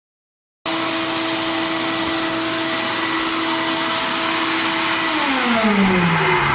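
Abrasive media blasting in a blast cabinet: a loud, steady hiss of air and grit that starts suddenly, with a steady hum in it whose pitch drops over the last second or so.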